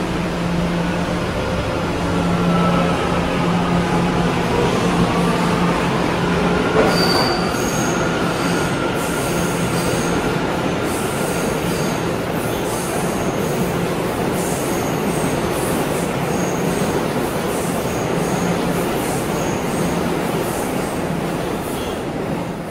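New York City subway trains moving through an underground station: a steady, loud rumble of wheels on rail under a low hum, with motor whine that shifts in pitch about a third of the way in. From then on, short high-pitched wheel squeals come again and again.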